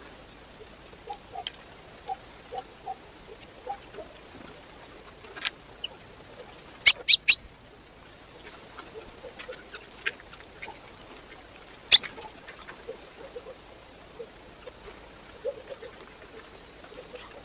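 Animals feeding at a bird feeder: scattered light taps and pecks, with three sharp knocks in quick succession about seven seconds in and another single knock about twelve seconds in.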